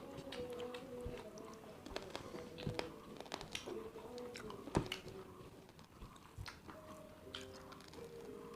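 Close-up chewing and biting of a meal of rice, fried chicken and roasted pork eaten by hand, with scattered small clicks and crunches. One sharper click about halfway through.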